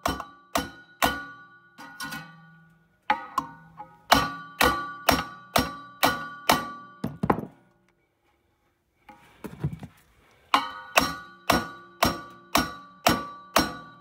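Hammer blows on a socket held against the end of a furnace blower motor's shaft: runs of sharp, ringing metal strikes about two a second, with a pause in the middle. The shaft and wheel are being driven to re-centre an off-centre blower wheel, and the blows move it very little.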